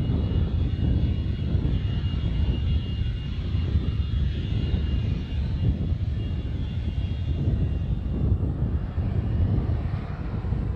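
Small jet aircraft's engine running as it rolls along the runway: a steady, heavy rumble with a high turbine whine that fades about two-thirds of the way through.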